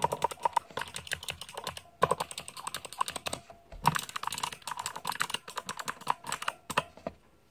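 Fast typing on a Hansung MKL16S mechanical keyboard with clicky Kailh Speed Pink switches and ABS keycaps: a rapid run of sharp key clicks, broken by brief pauses about two and three and a half seconds in, and stopping near the end.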